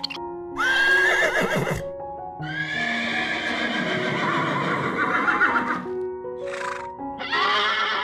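Horse whinnying three times, the middle neigh long and drawn out, with a short squeal just before the last, over background music of simple stepping notes.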